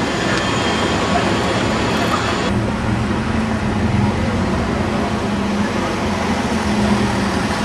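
City street traffic noise with bus engines running. About two and a half seconds in the background changes abruptly, and a steady engine hum comes in as an Optare Solo midibus drives past.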